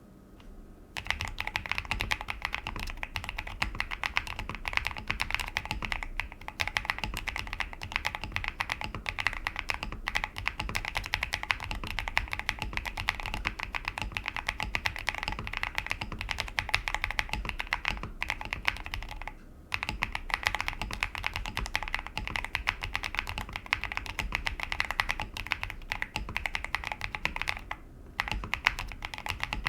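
Steady, fast typing on a QK65 v1 mechanical keyboard with stock MZ Studio Z1 linear switches, plate foam and a PE foam mod: a dense run of keystroke clacks. The typing begins about a second in and breaks off briefly twice, once around two-thirds of the way through and again near the end.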